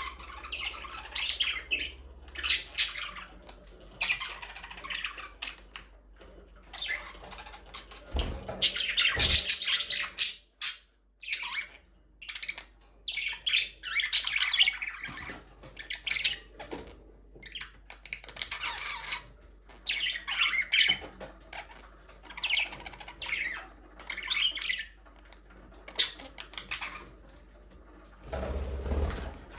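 A flock of budgerigars chattering, chirping and squawking, with many short, high calls overlapping one another.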